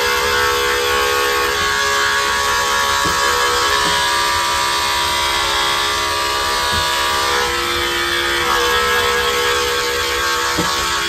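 Electric dog-grooming clipper running with a steady hum while cutting through a poodle's long tail hair; the pitch shifts slightly about seven to eight seconds in.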